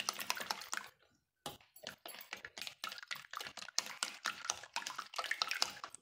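Whisk beating eggs, milk and spices in a glass bowl: quick wet clicks and splashes of the wires against the glass, with a short pause about a second in.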